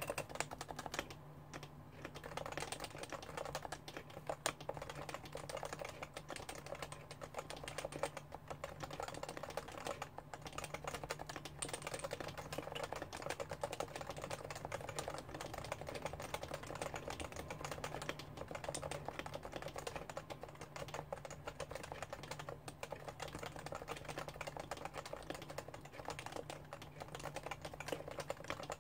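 Continuous typing on a Realforce R2 keyboard with Topre electrostatic capacitive switches, a dense run of keystrokes with a couple of brief pauses.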